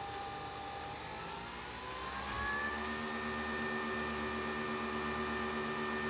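Nespresso capsule machine brewing: a steady motor whine that glides up in pitch about a second in and holds at the higher pitch as the coffee stream stops. The machine is running normally again after a cleaning cycle.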